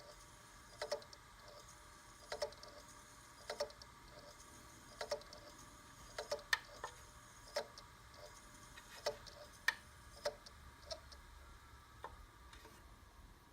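Hard drive inside a G-Technology G-RAID 2-bay Thunderbolt 3 array knocking: a faint click about every one and a half seconds, often doubled, trailing off near the end. It is the knocking of a faulty drive in an array that will not show up on the computer.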